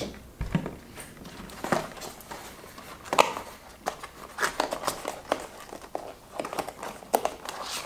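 Stiff cardboard packaging being handled: scattered taps, scrapes and light rustles of paperboard, with a dull knock near the start.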